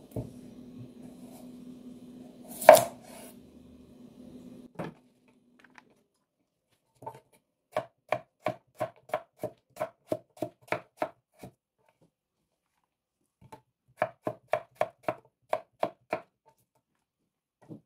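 Kitchen knife chopping through raw potato onto a wooden cutting board: two runs of quick, evenly paced strikes, about four a second, as the potato is cut into wedges. Before them, a low steady hum with one sharp knock, the loudest sound here.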